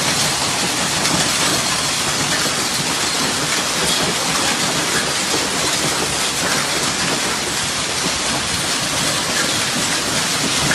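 Heavy storm downpour: a dense, steady hiss of rain with faint scattered ticks of drops striking surfaces.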